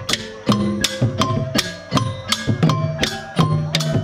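Khmer folk procession percussion, of the chhayam kind that accompanies masked clown dancers: hand drums beat a steady, driving rhythm with clashing brass hand cymbals, about three strokes a second.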